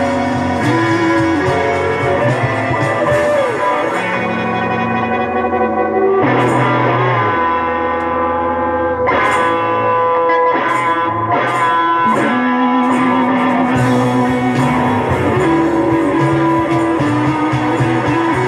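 Guitar-led rock music, with plucked notes and a sliding note a few seconds in.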